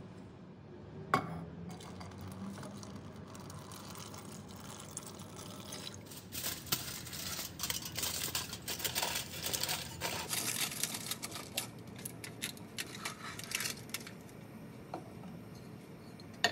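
Aluminium foil crinkling and crackling as it is handled and pressed down over a dish, a dense run of crackles for about eight seconds in the middle; a single sharp tap about a second in.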